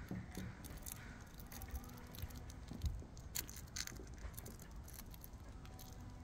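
Beagle puppy nosing and mouthing a plush toy on a fleece blanket: soft rustling with scattered light clicks and taps, a slightly louder tap about halfway through, over a faint low rumble.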